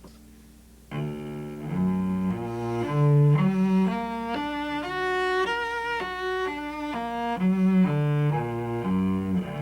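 Solo cello playing an augmented-triad arpeggio in separate bowed notes, starting about a second in, climbing steadily across the strings and coming back down.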